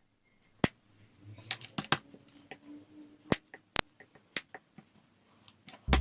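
Clear slime being handled, giving a handful of sharp, loud clicks and pops at uneven intervals among faint little crackles.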